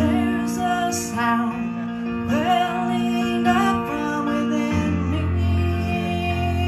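A woman singing slow, held notes with vibrato over sustained chords from an electronic keyboard. The low chord changes about three-quarters of the way through.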